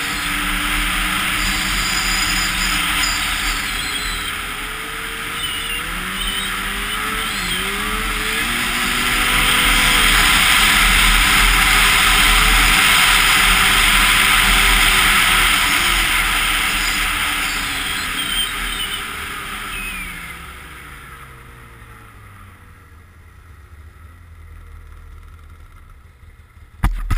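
Arctic Cat Crossfire 1000 snowmobile engine running under throttle, its pitch wandering up and down with speed. About two-thirds of the way through it slows, the pitch falling as the revs drop, and it runs much quieter near the end.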